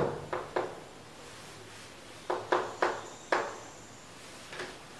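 Chalk tapping and scraping on a chalkboard as Japanese characters are written: two sharp taps at the start, a quick run of four in the middle and one more near the end.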